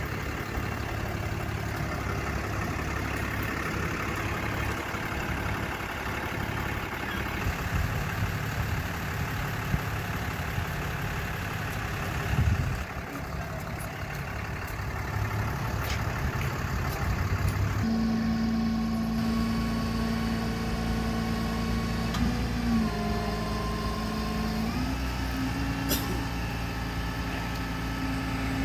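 Ram flatbed tow truck's engine idling. About two-thirds of the way in, a steady hum sets in over the engine, dipping in pitch and then rising a few seconds later, as the truck's hydraulics tilt the rollback bed.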